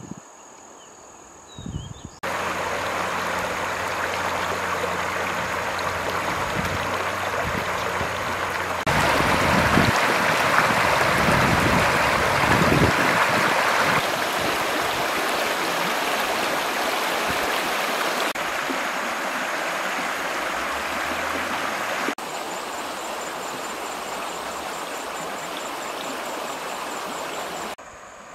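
River water flowing: a steady rush that starts abruptly about two seconds in and changes level in sudden steps, loudest for about five seconds from roughly nine seconds in.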